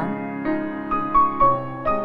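Background piano music: a slow, gentle melody of sustained notes.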